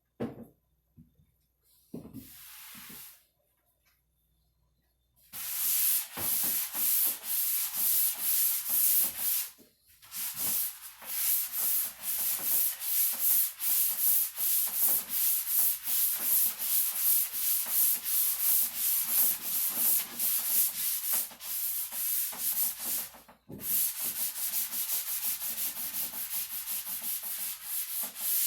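Sandpaper rasping across the cedar chest's wooden top in quick back-and-forth strokes, about two or three a second, starting about five seconds in and pausing briefly twice. A knock and a short rasp come first.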